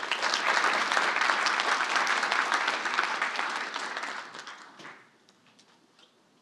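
Audience applauding, the clapping dying away about four and a half seconds in, leaving only a few faint isolated clicks.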